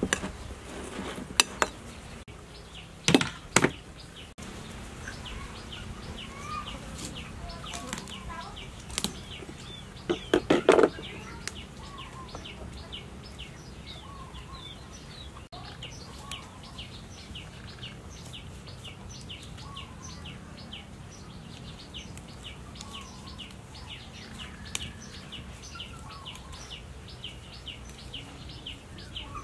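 Metal spoon scraping and knocking against a ceramic plate while mixing fish paste, with a few sharp clinks in the first seconds and a quick cluster of knocks about ten seconds in. Through the second half, a bird or insect chirps over and over at a quick, even pace, with faint bird calls now and then.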